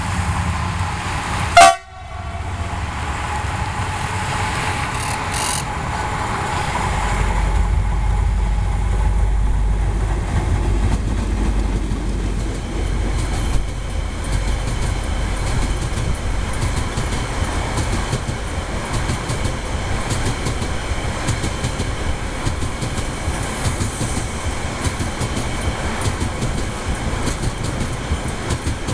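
Freight train passing: a CRRC CDD6A1 diesel-electric locomotive goes by with a deep rumble about seven seconds in, followed by a long string of container flats and wagons clattering steadily over the rails. A single brief, very loud knock sounds about two seconds in.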